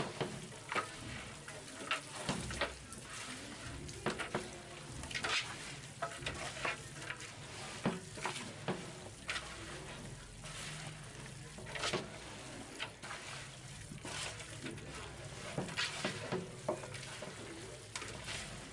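Raw mutton pieces and an oily onion-and-spice masala being mixed by hand in a large metal pot: irregular rustling with scattered sharp clicks.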